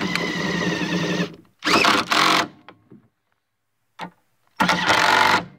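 Riding mower engine turning over in three short bursts, the longest about a second at the start, each one cutting off abruptly.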